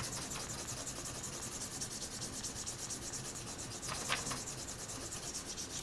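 A wooden spoon rubbed quickly back and forth over paper on a lino block, a steady, fast scratchy rubbing. It is burnishing the drawing down so the image transfers onto the linoleum.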